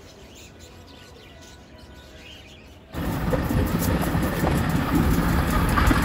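Caged budgerigars chirping faintly, then about halfway a loud, steady din like road traffic cuts in abruptly and covers them.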